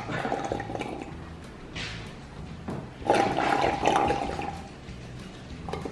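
A child slurping the last of a little water through a straw at the bottom of a glass jar, sucking air and liquid together in gurgling bursts: one at the start, a longer one about three seconds in, and another at the end. The gurgle comes from the jar being nearly empty.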